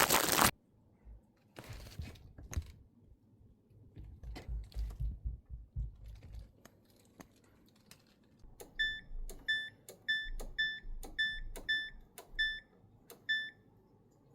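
Buttons being pressed on a laundry appliance's control panel: scattered clicks and knocks, then a run of about nine short beeps, each with a click, roughly two a second.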